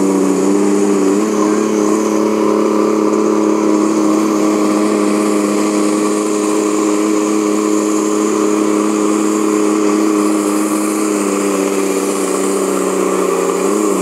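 Pulling tractor's engine held at high revs as it drags the weight sled down the track, a loud steady drone. The pitch steps up slightly about a second in and sags a little near the end.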